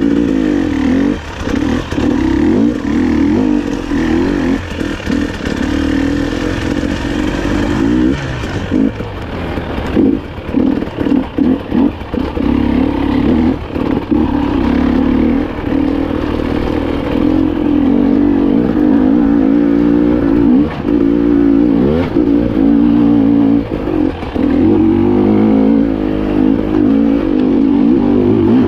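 300 cc two-stroke enduro motorcycle being ridden hard, its engine revving up and down with the throttle. Through the middle of the stretch the throttle is chopped on and off many times in quick succession, and toward the end it holds higher, steadier revs.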